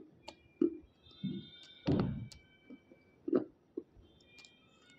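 A person biting and chewing a water-soaked chalky stone close to the microphone: about six soft, damp bites and chews, the loudest and longest about two seconds in. The soaking has left the stone soft, so the bites are dull rather than sharp crunches.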